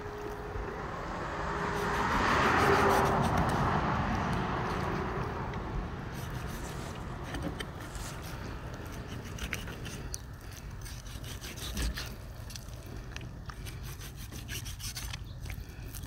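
A sharp knife cutting and scraping fat and skin from a pork leg, with scattered small scrapes and clicks. A rushing noise swells and fades over the first several seconds, the loudest sound here.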